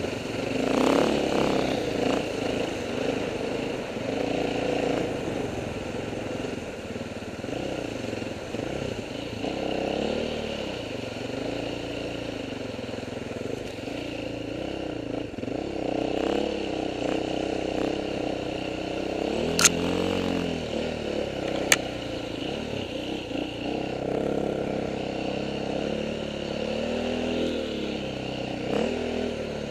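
KTM 530 dirt bike's single-cylinder four-stroke engine, revving up and down as it rides through mud and water. Two sharp clicks stand out about two-thirds of the way through.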